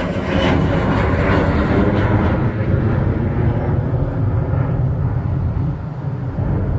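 Business jet's rear-mounted turbofan engines at takeoff power as it climbs away overhead: a loud, deep roar whose higher hiss fades over the first few seconds as the jet recedes.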